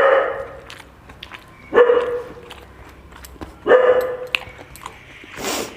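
A dog barking three times, about two seconds apart, each bark loud and sudden and then tailing off. A short noisy burst follows near the end.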